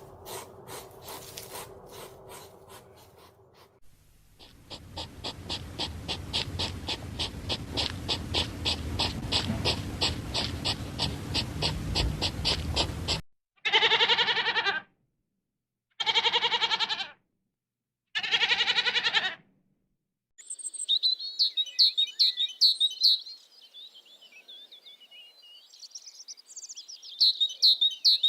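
Several animal sounds follow one another. First comes a fast, rhythmic rasping sound. Then three loud, drawn-out pitched animal calls come about two seconds apart, followed by small birds chirping in quick high notes.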